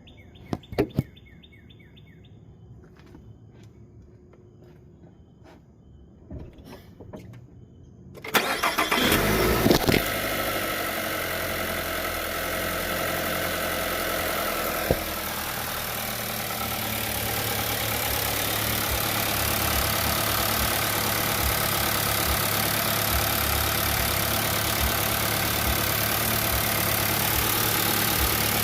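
A few light clicks, then about eight seconds in the 2021 Nissan Rogue's 2.5-litre four-cylinder engine starts with a brief surge and settles into a steady idle with a constant hum and a strong hiss. This is the noise the owner says it makes even after warming up, which the dealership says is no problem.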